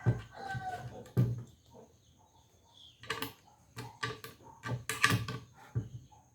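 Irregular wooden knocks and clatters from workshop handling of parts, several in quick succession in the second half. A rooster's crow trails off in the first moment.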